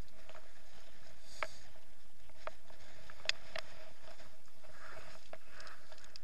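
Wind rushing over an action camera in its waterproof housing, with scattered sharp clicks and taps as the camera is handled and moved.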